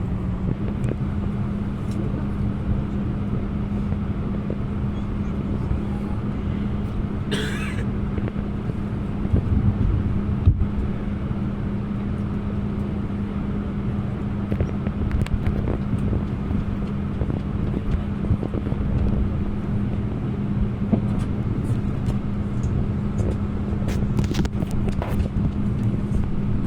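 Steady cabin hum of an Airbus A321 on the ground, a constant low drone with a steady tone in it. A brief hiss comes about seven seconds in and a single click a few seconds later.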